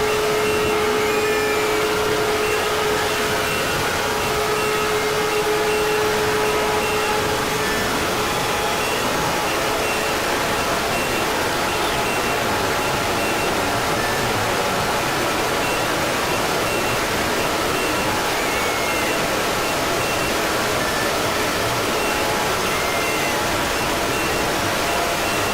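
Fan-made Emergency Alert System alarm audio, heavily amplified and distorted into a loud, steady roar of noise. A held tone sounds through it and stops about eight seconds in. Faint, short high beeps repeat at an even pace throughout.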